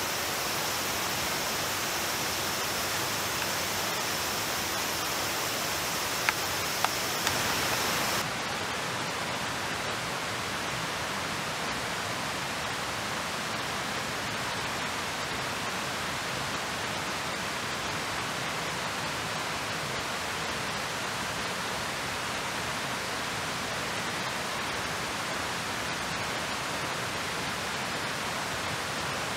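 Steady hiss of rushing water in a wet forest. About eight seconds in the high part of the hiss drops away suddenly, just after two sharp clicks.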